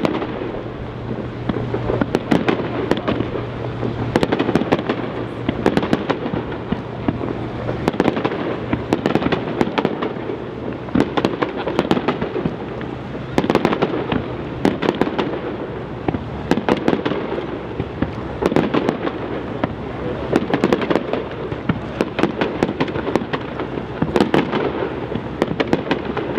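Aerial fireworks display: a dense, continuous barrage of shell bursts with crackling stars, several bangs a second overlapping throughout.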